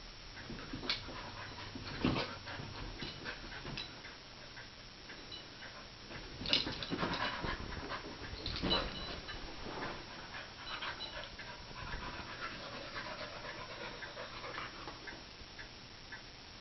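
A Bernese Mountain Dog–shepherd mix panting as it chases a laser dot, tired from running. Scattered thumps and scuffs of its paws on carpet, the loudest about two, six and a half and eight and a half seconds in.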